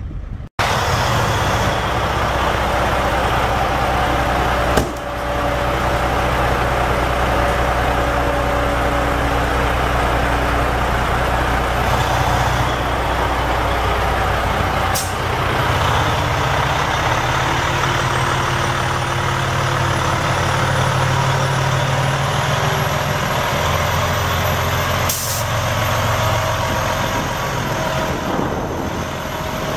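Detroit Diesel Series 60 14.0-litre inline-six turbo diesel of a Freightliner Columbia semi tractor running steadily, driving and then idling. There are a few sudden clicks, a faint high whine that rises slowly in the second half, and a brief hiss near the end.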